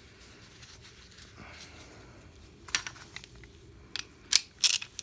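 A few sharp metallic clicks and clinks of a socket and extension being handled, starting about three seconds in after a quiet stretch of faint rag rubbing.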